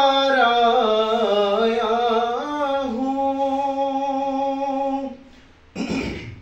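Unaccompanied male voice singing a naat, holding long wavering notes in a slow melisma that end about five seconds in. A short rush of noise follows near the end.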